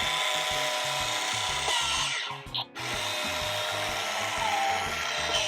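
Toy forklift whirring in two runs of about three seconds each, with a short break between them, over background music.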